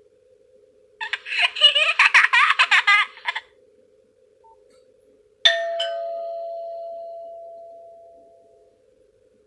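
Nokia 103 mobile phone playing ringtones: a short burst of giggling laughter, then about five seconds in a two-note doorbell ding-dong that rings out and slowly fades.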